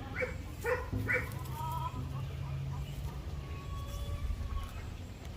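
A dog barking in short yips, about two a second, stopping a little over a second in, followed by faint thin whines.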